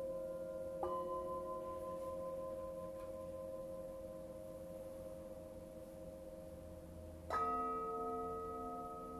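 Metal singing bowls struck with a mallet and left to ring: a soft strike about a second in adds a new tone to the layered, slowly fading ring, and a louder strike near the end brings in a fresh set of tones with a slow wavering pulse.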